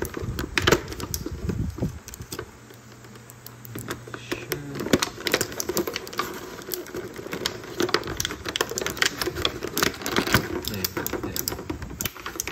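Clear plastic packaging crackling and crinkling as it is handled and pulled away from a toy figure, in a dense run of irregular small clicks and rustles.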